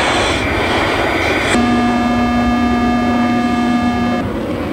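F-16 jet engine and airflow noise, steady, with a steady electronic cockpit warning tone about a second and a half in that holds for roughly two and a half seconds and then cuts off.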